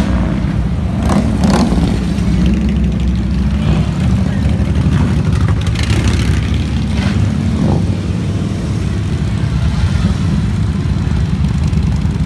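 Steady low rumble of a running vehicle, with brief faint voices now and then.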